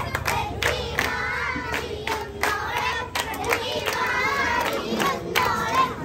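A crowd of many people talking and calling out at once, with scattered sharp knocks.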